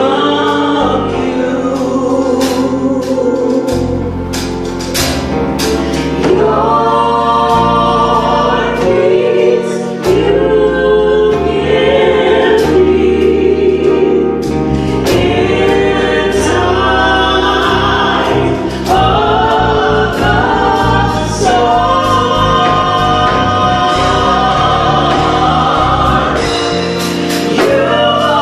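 Gospel vocal group of three women and a man singing in harmony into microphones, with notes held and then moving to the next chord.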